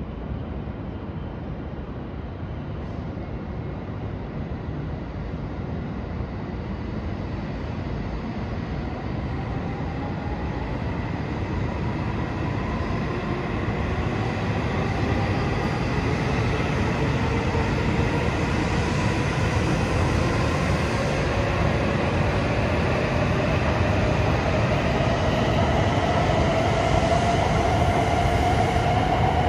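Shinkansen train pulling out, its motor whine rising slowly in pitch and growing louder over a steady running rumble as it gathers speed.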